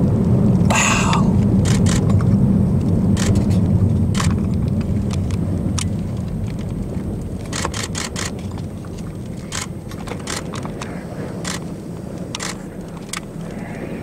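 In-car road noise from a moving car: a steady low drone that fades over the middle of the stretch, with scattered sharp ticks and taps.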